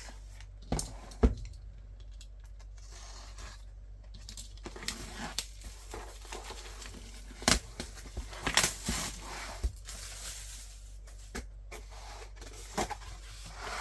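Merchandise packaging being opened and unpacked by hand: plastic wrapping crinkling and tearing, with several sharp clicks and knocks as pieces are handled and set down, the loudest about a second in and midway through.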